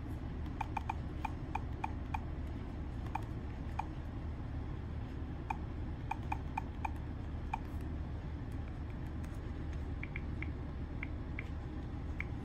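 Flip phone keypads beeping and clicking as their buttons are pressed through the settings menus: short, sharp key beeps, several in quick runs, with higher-pitched beeps in the last few seconds. A steady low hum runs underneath.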